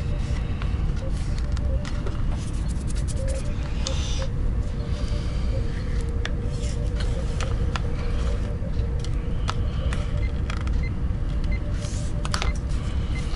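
Steady low rumble under a faint steady hum, with scattered small clicks and taps.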